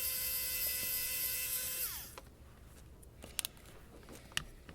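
WOWSTICK F1+ electric precision screwdriver's small motor running with a steady whine as it slowly unscrews small Torx screws, then winding down and stopping about two seconds in. A couple of light clicks follow.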